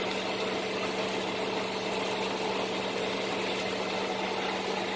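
Air compressor running with a steady hum, over the even hiss of rain.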